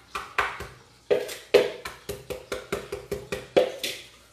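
Wooden pestle pounding garlic and salt in a plastic mixing bowl, crushing it toward a paste: a quick run of sharp knocks, about four to five a second, with a brief pause about a second in.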